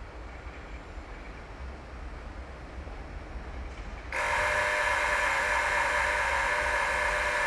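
A loud, steady, shrill sound from a train, holding several tones at once. It starts suddenly about four seconds in and carries on for about four seconds. Under it is a low steady rumble.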